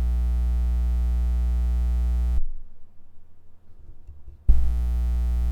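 Blue Spark SL condenser microphone putting out a loud, steady electrical hum with a buzzy stack of overtones while its blue logo is touched. The hum cuts off about two and a half seconds in and returns about four and a half seconds in. It is the sign of a fault inside the microphone.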